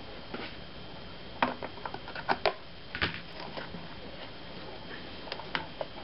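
Hands handling the plastic housing and tubing of an opened Mr. Coffee JWX31 coffee maker: scattered light clicks and knocks, clustered in the middle and twice more near the end.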